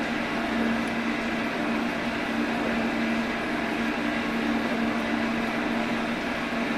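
Metal shaper running while a radius form tool takes passes across an aluminum block: a steady mechanical hum with a constant low tone and no break.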